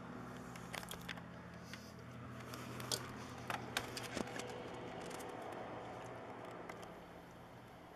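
Sikorsky S-76C helicopter giving a steady low hum that eases off a little near the end, with a scatter of sharp clicks in the middle.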